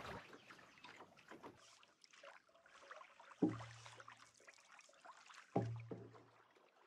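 Canoe being paddled on calm water: faint trickling of water along the hull, with two dull thumps about two seconds apart carried through the canoe's hull as the paddle strokes.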